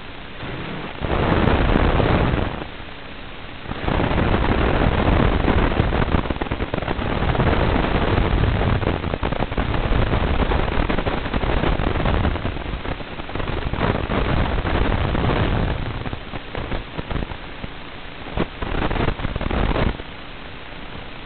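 Crackling static hiss from an analog FPV video receiver's audio channel. It surges loud for about a second and a half near the start, then for about twelve seconds, and again in short bursts near the end: the sign of the drone's video signal breaking up as it weakens.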